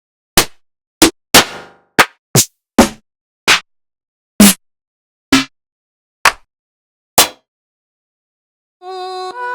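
Single drum samples from a trap drum kit auditioned one at a time: about eleven short separate hits, each cut off into dead silence before the next. Shortly before the end a pitched melodic loop with several notes begins.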